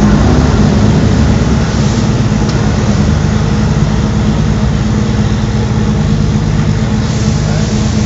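Porsche 911 race cars' flat-six engines idling steadily at one even low pitch.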